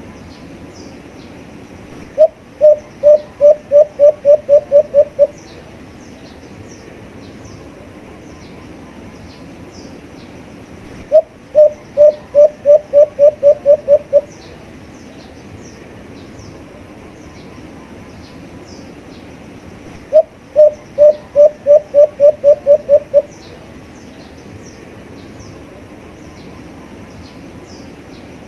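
Alimukon (white-eared brown dove) calling: three bouts of about ten low cooing notes that come faster as each bout goes on, each bout about three seconds long and repeated roughly every nine seconds. Faint high chirps of other small birds sound under a steady background hiss.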